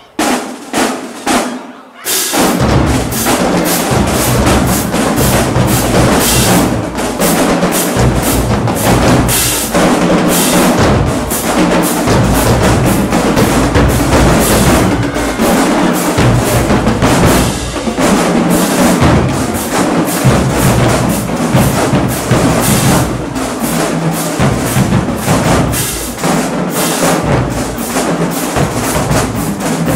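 Marching drumline with drums and cymbals playing a cadence. A few separate hits come first, then the full line comes in about two seconds in and keeps playing without a break.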